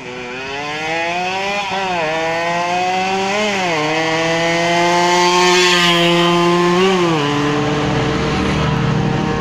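Yamaha RX-King 135 cc two-stroke single with an under-slung expansion-chamber exhaust, accelerating hard: the revs climb and fall back with quick upshifts about two and three and a half seconds in. It then holds a high note, loudest midway, before the pitch drops again about seven seconds in.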